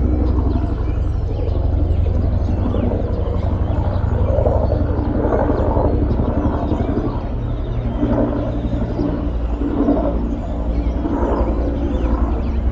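Bell UH-1N Twin Huey helicopter flying over, its two-bladed main rotor beating steadily and loudly.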